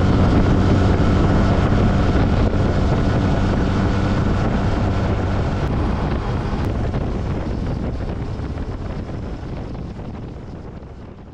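Yamaha scooter being ridden at road speed: steady engine hum buried under heavy wind noise on the microphone, fading out near the end.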